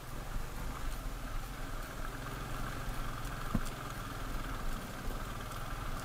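Motorcycle engine running at low, steady revs while riding over a gravel track, with a single sharp knock about three and a half seconds in.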